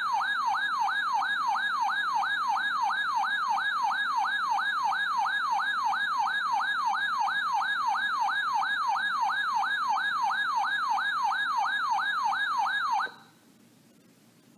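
Electronic alert tone whose pitch sweeps quickly downward over and over, about two and a half times a second, a steady siren-like warble that cuts off sharply about 13 seconds in. It is the attention signal sounded ahead of a broadcast flood warning.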